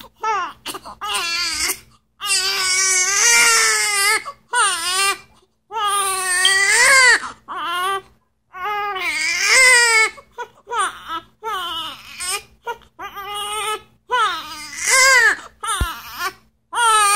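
Newborn baby crying in a series of cries of a second or two each, the pitch rising and falling within each one, with short catches of breath between them.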